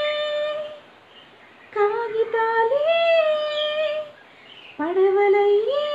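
A woman singing alone with no accompaniment, in long drawn-out notes: three phrases, the later two sliding up and then stepping up to a higher held note, with short pauses between them.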